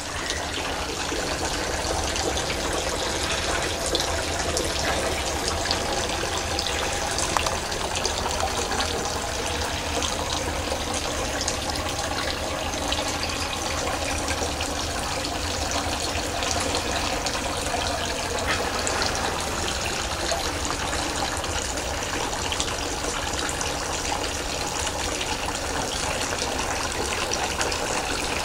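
Tiered garden fountain splashing steadily, water falling from its bowls.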